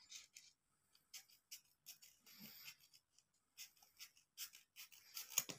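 Faint pencil scratching on paper in short, irregular strokes, as a heart shape is drawn.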